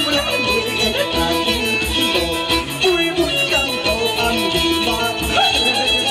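Live band music: a violin melody over plucked strings and a steady beat.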